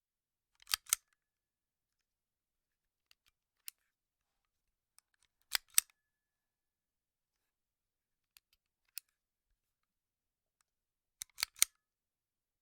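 Gun mechanism sound effects: short, sharp metallic clicks, mostly quick double clicks about every five seconds with single fainter clicks between, like a gun being cocked or handled, over dead silence.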